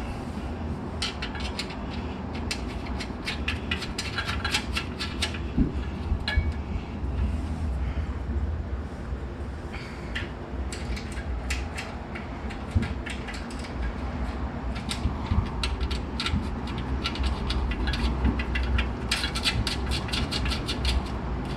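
Metal clicks and clinks in quick runs from hand tools and bolt hardware being worked while a license plate bracket is fastened, over a steady low hum.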